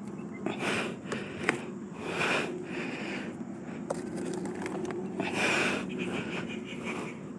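A person breathing heavily close to the microphone, several loud breaths in and out, with a few sharp clicks and rustling.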